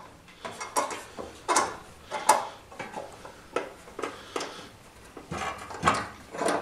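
Hand lever-operated louver tool being worked on a steel splash pan: about ten irregular sharp metallic clicks and knocks as the handle is levered and the sheet flexes. The loudest knock comes a little over two seconds in, and another near the end.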